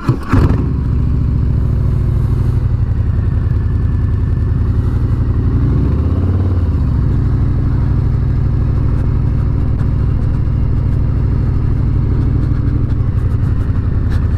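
Harley-Davidson motorcycle's V-twin engine running at low road speed, a steady low pulsing exhaust note that swells briefly about six seconds in.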